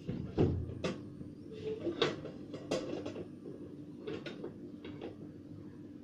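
Irregular knocks and clicks, about eight in all, the loudest about half a second and two seconds in, over a steady low hum.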